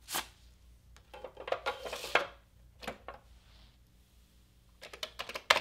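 5.25-inch floppy disk being pushed into a Commodore 1541 floppy disk drive: a click, then scraping and clicks as the disk slides in. Near the end comes a run of clicks and a sharp snap as the flip lever is turned to close the drive door.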